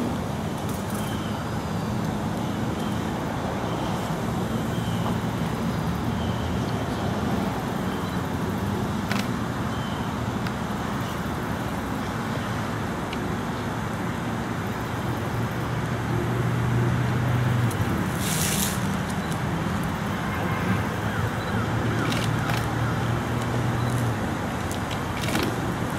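Steady outdoor background noise with a low engine hum from road traffic that swells a couple of times, and a brief hiss about eighteen seconds in.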